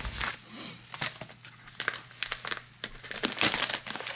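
Packaging crinkling and rustling in irregular sharp crackles as a mailing envelope is opened and its contents are pulled out.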